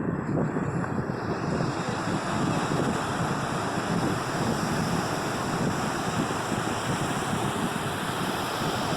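Sea surf washing onto a beach in a steady rush, with wind buffeting the microphone.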